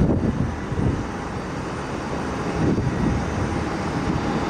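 Dassault Falcon 900 three-engine business jet departing, its jet engines making a steady rumble.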